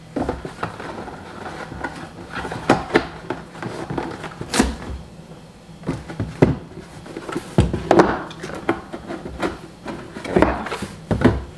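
Cheap cardboard storage boxes being handled: irregular knocks, taps and rubbing of cardboard as the boxes are moved and their lids fitted on and off, the loudest knocks near the middle and near the end.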